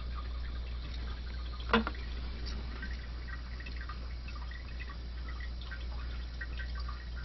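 Water dripping and trickling in an open toilet tank while the tank lever arm is worked into place, with many small scattered ticks. One sharp click comes nearly two seconds in, over a steady low hum.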